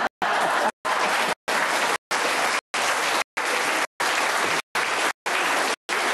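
Studio audience applauding, a dense even clapping, chopped by short silent gaps about every 0.6 seconds.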